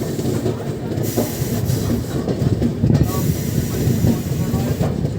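Indian Railways train pulling out of a station: a steady low rumble of the coaches rolling on the rails, with a few scattered knocks.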